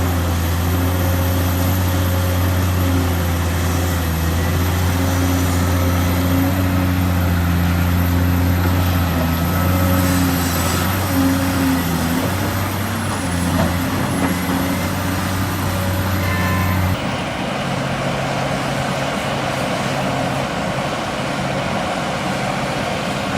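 Large diesel engines of excavators and dump trucks working, running steadily with the engine note rising and falling slightly under load. About two-thirds of the way through the sound changes abruptly to a different, lower-pitched engine note.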